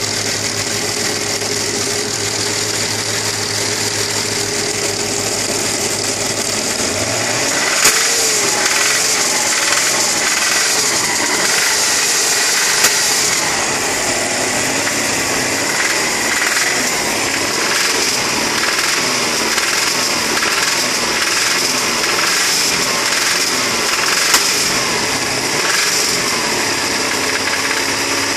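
AKG engine with a knocking connecting rod, idling steadily at first, then revved up and down over and over from about seven seconds in, with a few sharp louder knocks among the revs.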